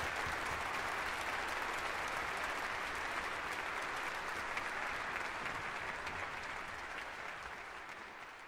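Audience applauding steadily, the clapping fading away near the end.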